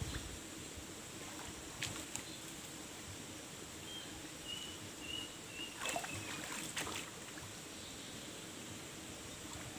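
Faint steady outdoor hiss with a few brief splashes and sloshes as people wade and work their hands in shallow stream water. A short run of faint high peeps sounds near the middle.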